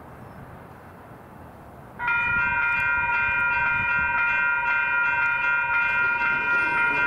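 Low street background, then about two seconds in the railroad crossing's electronic warning bells start up suddenly and ring in a fast, even, repeating ding from several bells at once. The crossing has activated for an approaching train.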